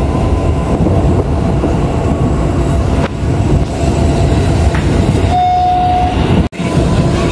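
KRL commuter electric train running, heard from inside the carriage: a steady rumble and wheel noise. A brief steady tone sounds about five seconds in, and the sound drops out for an instant shortly after.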